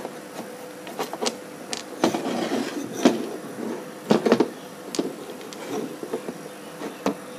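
Handling noise from a CRT television's focus potentiometer block, with its metal bracket and high-voltage wires, being picked up and turned over by hand: scattered clicks, knocks and rustles, the sharpest a cluster about four seconds in.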